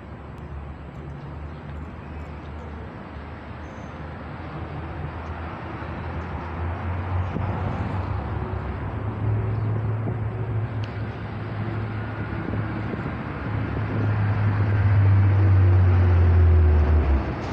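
Low engine rumble of a nearby motor vehicle, growing steadily louder and loudest near the end before dropping off suddenly, over general street traffic noise.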